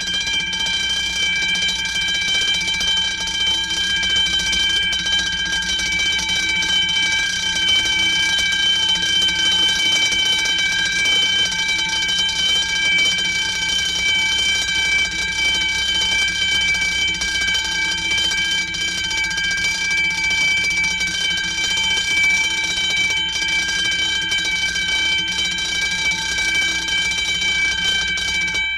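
A continuous, steady alarm-like ringing tone, several pitches held together over a rough buzzing base, unbroken for nearly half a minute.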